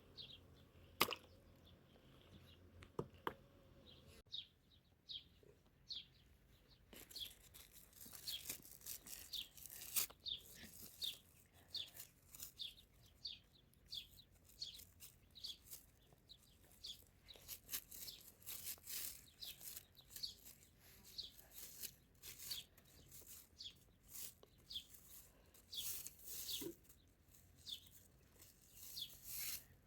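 Small birds chirping, a rapid run of short, high, falling calls that grows busier after the first few seconds, with scattered sharp clicks and rustles.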